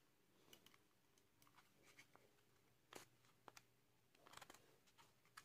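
Near silence, broken by a few faint clicks and taps as a cylindrical battery is pressed into the spring-contact holder of a solar light's plastic housing.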